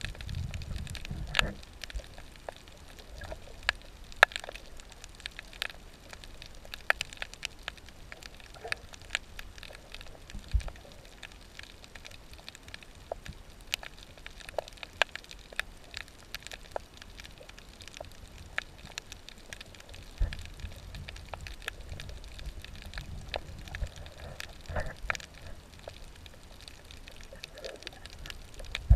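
Underwater reef sound picked up by a GoPro in its housing: a steady scatter of sharp clicks and crackles, typical of snapping shrimp on a coral reef. A low rumble of moving water joins in near the start and again through the last third.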